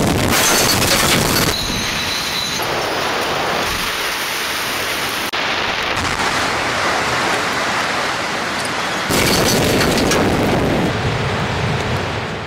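A multi-tier stadium section collapsing under demolition, a dense crashing rumble with debris raining down. The sound jumps in loudness several times, loudest at the very start and again about three-quarters through.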